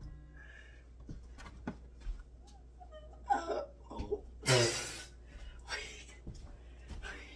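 A young woman laughing in short bursts with breaths between, the loudest burst about four and a half seconds in.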